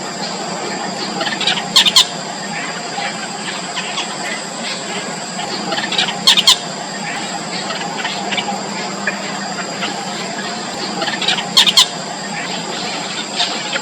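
Four-day-old nestlings giving thin, high squeaky begging calls, with three louder bursts of calls about four to five seconds apart over a steady background hum.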